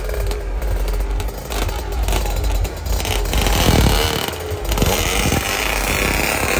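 Small two-stroke drag-racing motorcycles revving hard, their engines rising and falling in pitch, loudest a few seconds in as a pair of bikes launches from the start line.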